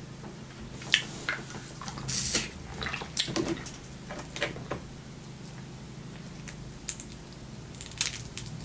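Snow crab legs being cracked and pulled apart by hand: scattered sharp snaps and wet clicks of shell, the loudest about a second in, around three seconds and near the end.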